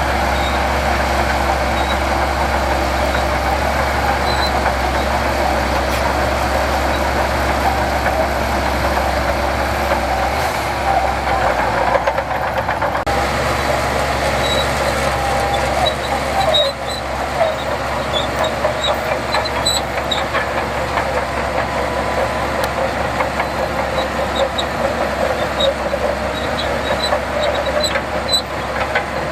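Heavy diesel earthmoving machinery running steadily, with a brief dip in level a little past halfway.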